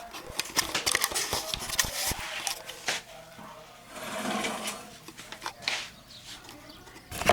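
Rapid clicks and ticks of small speaker parts being handled, then a couple of short scraping sounds.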